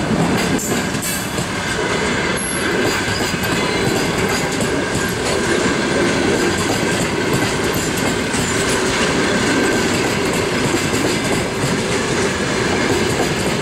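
Passenger coaches of a departing train rolling past close by, their wheels clattering on the rails, with a thin steady wheel squeal in the middle of the pass.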